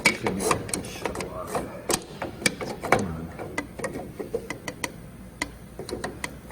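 Irregular sharp metal clicks and taps as screws are backed out of a machine cover and the hardware is handled.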